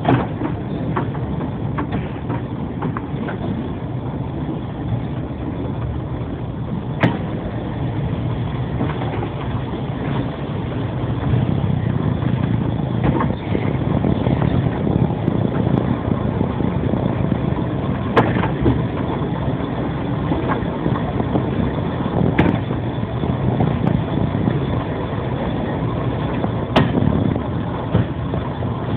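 Engine running steadily, a little louder from about eleven seconds in, with a few sharp knocks or clicks over it.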